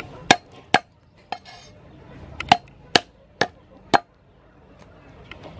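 Meat cleaver chopping lemongrass on a wooden chopping board: seven sharp knocks at uneven spacing, the third fainter.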